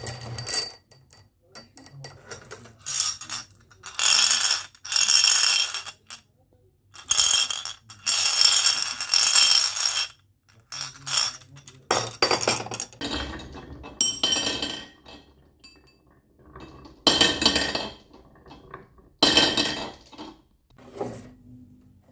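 Marbles rolling and clattering down a wooden marble run, clinking against the track and each other, in about eight separate runs of one to two seconds each with short gaps between.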